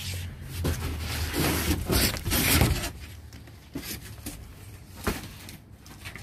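Cardboard rustling and scraping as a large cardboard pallet box and its flaps are handled, loudest in the first few seconds, followed by a few faint knocks.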